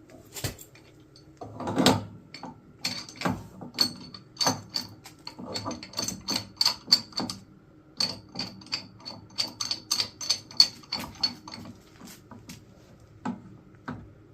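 Repeated sharp metallic clinks with a ringing high note, about two to three a second, from a metal tool working on the water heater's pipe fittings, after a single louder thump about two seconds in.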